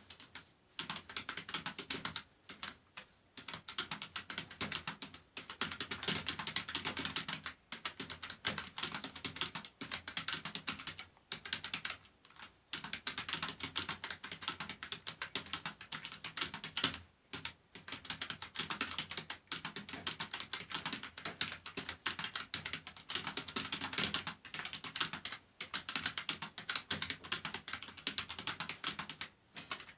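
Fast typing on a computer keyboard, at about 48 words a minute: runs of rapid keystroke clicks broken by short pauses every few seconds.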